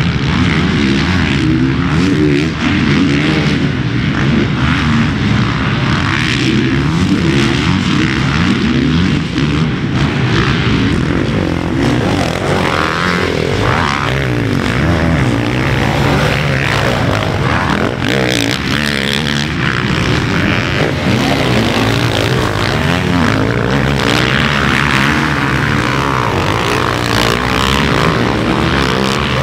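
Motocross bike engines running hard without a break, their pitch rising and falling as they rev.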